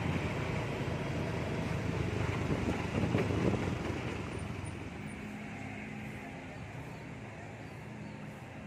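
Road traffic noise: the steady rumble of vehicles on a road, loudest in the first half and fading after about four seconds, leaving a faint low hum.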